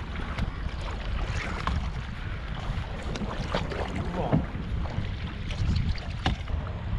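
Kayak paddle splashing in river water at irregular moments, over a steady low rumble of wind on the microphone.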